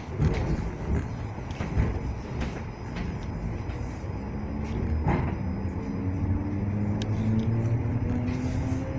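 Electric commuter train pulling away from a station, heard from inside the carriage. A rumble with a few knocks in the first two seconds and another about five seconds in, then a motor whine that starts about four seconds in and rises steadily in pitch as the train gathers speed.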